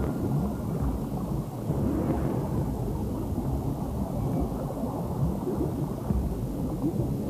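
Low, steady underwater rumble with bubbling: a movie sound effect for a deep-sea station.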